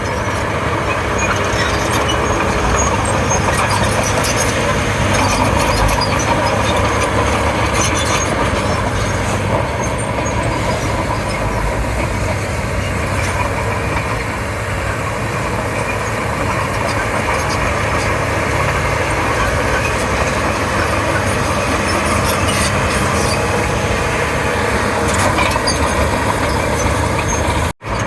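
Komatsu D31P bulldozer's diesel engine running steadily under load, with scattered short clanks and clicks over it.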